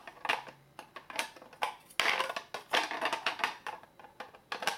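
Hard plastic scraping and clicking as hands work the battery cover back onto the back of a SmartThings home automation hub, with irregular sharp ticks and a busier stretch of scraping about two seconds in.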